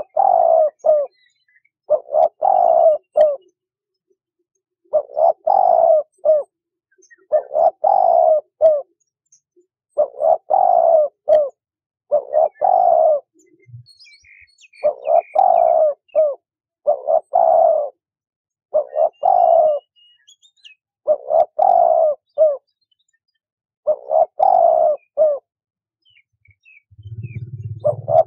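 A dove cooing repeatedly. Each phrase is a quick run of three or four coo notes lasting about a second, repeated every two seconds or so. A low rumble comes in near the end.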